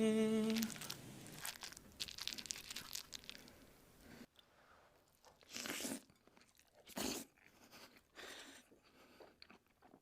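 Close-miked eating sounds: faint crunching and chewing in irregular bursts, two of them louder near the middle. A sung note from a song ends about half a second in.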